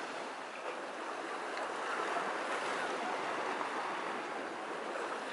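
Small waves breaking and washing up on a sandy beach: a steady rush of surf.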